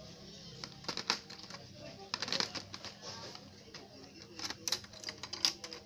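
Plastic loom-band kit parts clicking and knocking together in a hard plastic case as the loom board and tools are handled: irregular light clatter with a dozen or so sharp clicks, a cluster around two seconds in.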